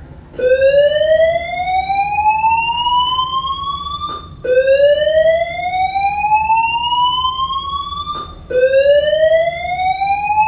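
School voice-evacuation fire alarm sounding its whoop tone: a rising sweep that climbs steadily in pitch for about four seconds, then drops and starts again. Three whoops, the last cut off.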